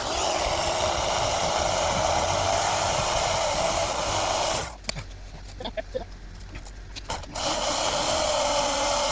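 Black & Decker electric chainsaw running and cutting wood in two runs: it runs for about four and a half seconds, stops with a few small knocks in between, and starts again near the end.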